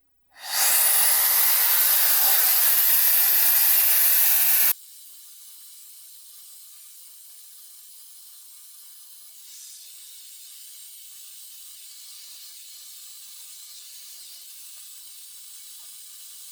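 ROIDMI A100 brushless high-speed hair dryer blowing, a loud steady rush of air that comes on quickly and cuts off suddenly after about four and a half seconds, leaving a much quieter steady hiss.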